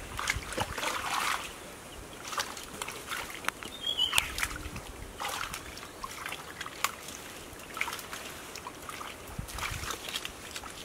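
Hands groping through shallow muddy water and soft mud: irregular small splashes, sloshes and squelches.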